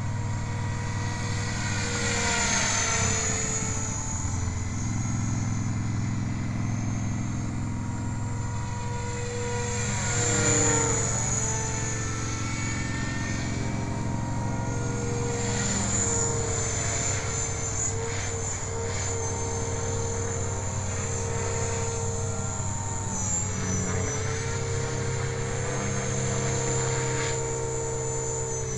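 Align T-Rex 500 electric RC helicopter in flight: a steady whine from its brushless motor and drive gears with rotor-blade noise, its pitch and loudness swelling and falling several times as it manoeuvres and passes, loudest about ten seconds in.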